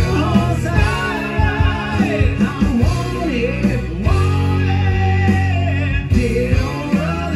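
A rock song performed live by two male voices singing together over a strummed acoustic-electric guitar.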